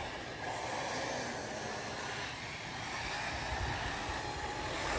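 Arrma Typhon 6S brushless electric RC buggies running laps on a dirt oval: a steady, even mix of motor and tyre noise with no distinct whine.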